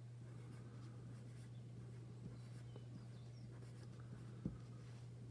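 Graphite pencil scratching lightly on paper in short strokes, drawing small scales, over a steady low hum. A soft tap about four and a half seconds in.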